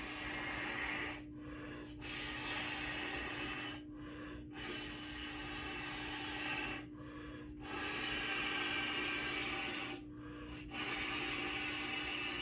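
A person blowing up a large rubber whoopee cushion by mouth: a series of long, hard breaths blown into it, about five in a row, each a couple of seconds long, with short pauses between them to draw breath.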